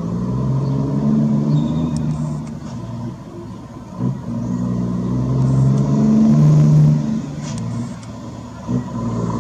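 Scania truck's diesel engine through a straight-pipe exhaust, running under load with a deep rumble that swells and eases, briefly breaking off about four seconds in and again near the end.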